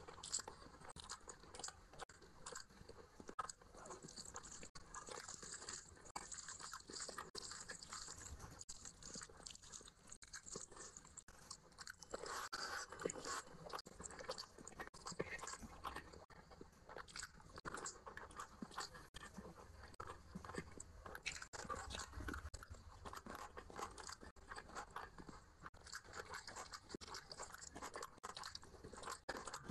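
Close-miked chewing and wet mouth sounds of a person eating rice and curry by hand, a steady run of small crackles and smacks, with the soft squish of fingers working rice and curry on the plate.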